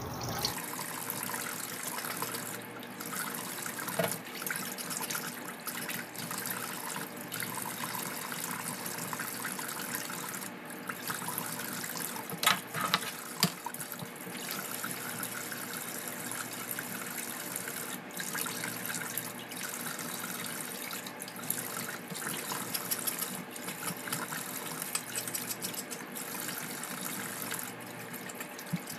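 Kitchen tap running steadily into a steel sink as food is rinsed by hand in a metal colander, with a few sharp knocks a little before halfway.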